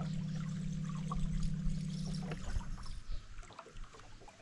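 A fishing reel's spool whirring steadily as the line pays out on a cast, stopping about two and a half seconds in when the lure lands. After that, light splashing and clicking on the water as the buzz bait is worked across the surface.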